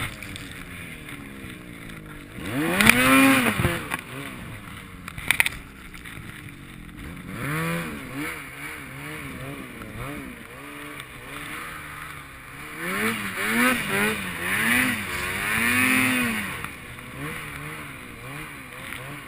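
Snowmobile engine revved in short throttle bursts, its pitch rising and falling with each, working the sled through deep powder snow. A loud rev comes about three seconds in, a couple of sharp knocks follow shortly after, and a run of quick revs comes near the end.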